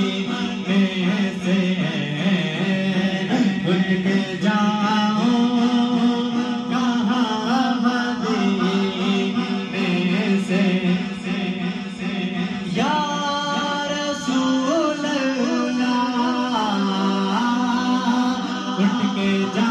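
A man singing a slow melody with long held notes into a JTS TK-600 handheld microphone as a test of the mic.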